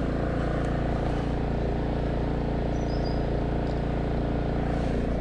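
An engine running steadily at idle, an even low hum.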